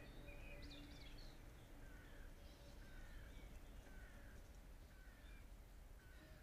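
Faint outdoor ambience with a bird giving a short falling call about once a second, five times, from about two seconds in, and other birds chirping briefly in the first second.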